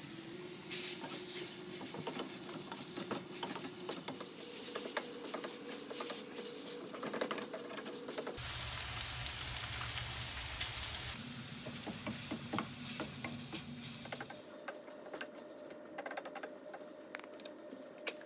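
Glass noodles and vegetables sizzling in a hot stainless steel pan, with scattered sharp clicks. About eight seconds in, water is poured into the pan, giving a louder stretch of sizzling and splashing for about three seconds before the sizzle settles back.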